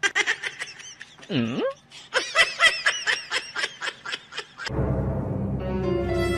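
A person laughing in quick, high-pitched bursts, with one swooping low note about a second and a half in. The laughter stops at about four and a half seconds, and background music with a low drone begins.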